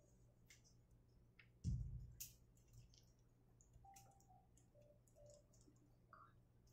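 Near silence: quiet room tone with scattered faint clicks and one dull low thump a little under two seconds in.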